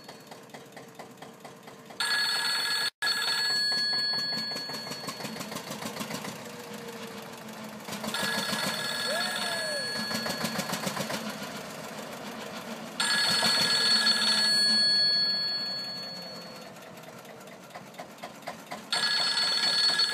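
Old rotary telephone's bell ringing in four long spells, roughly every five to six seconds. A vintage tractor engine runs with a steady rhythmic beat underneath.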